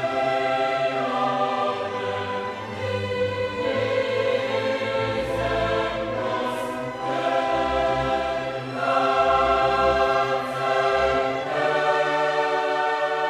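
Background music: a choir singing long held chords, the harmony shifting every second or two.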